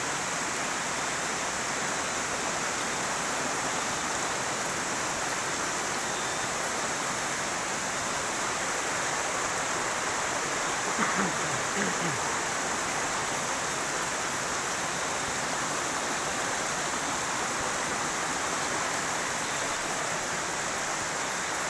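A steady, even hiss of outdoor night-time ambience, with a brief low voice-like sound about eleven seconds in.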